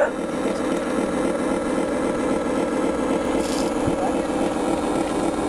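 Steady simulated diesel engine drone from the radio-controlled model barge's onboard sound module, running evenly at one pitch and cutting off abruptly at the very end.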